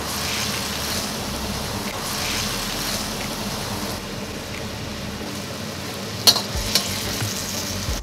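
Eggplant frying in hot oil in a wok: a steady sizzle. There are a couple of sharp clanks a little after six seconds in.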